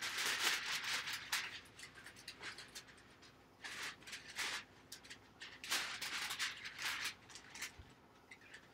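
Rustling and crinkling as sheets of transfer material are handled, in three clusters of short bursts: right at the start, around four seconds in, and again from about six to eight seconds.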